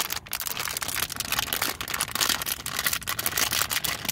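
Dense, irregular crinkling and clicking of plastic being handled as the new door logo light is picked up.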